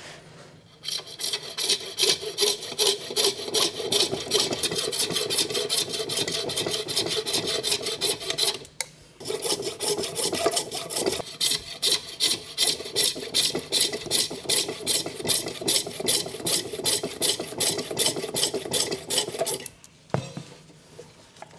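Coping saw cutting through walrus ivory in steady back-and-forth strokes, about three a second, with a short pause about nine seconds in.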